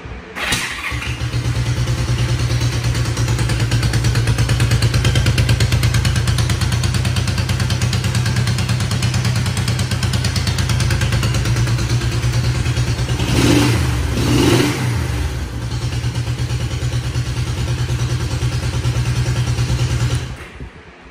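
1972 Honda CL350's air-cooled parallel-twin engine starting about half a second in and idling steadily, with two quick throttle blips about two-thirds of the way through, then switched off shortly before the end. The engine runs freshly after a top-end rebuild and still needs tuning.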